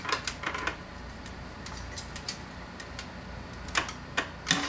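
Light clicking and rattling of a metal tape measure being handled against the suspension, a cluster of clicks near the start and another near the end, over a faint steady background hum.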